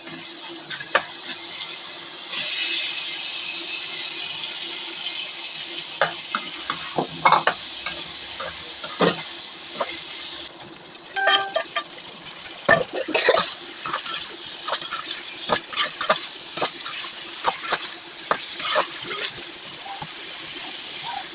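Food sizzling as it fries in a pan while a spatula stirs, scraping and knocking against the pan in many quick clicks. The sizzle gets louder about two seconds in and drops off about halfway through, after which the stirring clatter goes on over a quieter sizzle.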